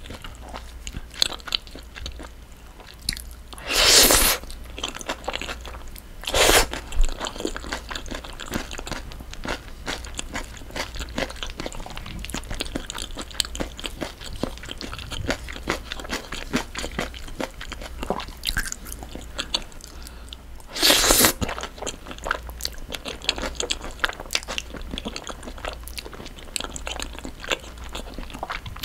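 Close-miked eating: steady chewing with many small wet mouth clicks as cream-sauced linguine is eaten. Three loud slurps of noodles come about 4 s in, a couple of seconds later, and again near the end.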